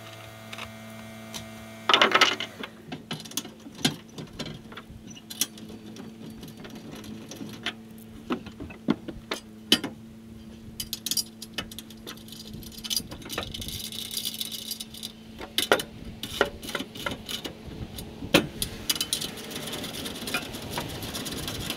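Steel rack parts and hand tools clanking and knocking in a pickup's metal bed as the rack is fitted and bolted down: irregular sharp metal clicks and knocks throughout, the loudest clatter about two seconds in.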